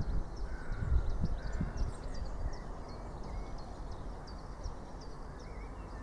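Small birds chirping repeatedly in short high notes over a low, gusty rumble.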